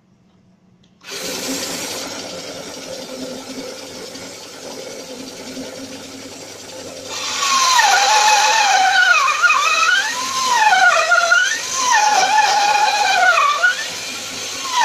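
Homemade mini bandsaw powered by a washing-machine motor, starting suddenly about a second in and running steadily. From about seven seconds the blade cuts a block of wood, louder, with a whining tone that repeatedly dips and rises in pitch as the wood is fed.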